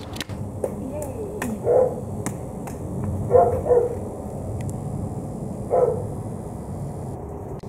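A dog barking about four times, single barks one to two seconds apart, two of them close together, over a steady hiss.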